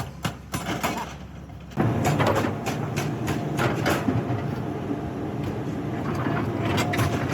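A few evenly spaced sharp metal knocks, then, about two seconds in, heavy machinery starts up abruptly: a continuous low rumble with irregular metal clanks.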